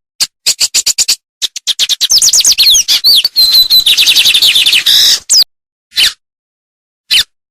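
A songbird singing: a quick run of sharp chirps, then about four seconds of dense, rapid song made of fast downward-sweeping notes with a briefly held high whistle near the middle, and two single chirps near the end.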